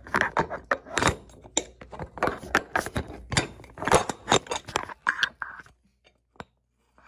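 Rapid clicks, clinks and knocks of small hard objects being handled close to the microphone, going quiet briefly near the end.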